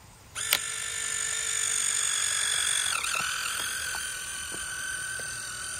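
MiNT InstantKon RF70 instant camera taking a shot and ejecting an Instax Wide print: a sharp click about half a second in, then a steady, high, screeching whine from the film-ejection mechanism.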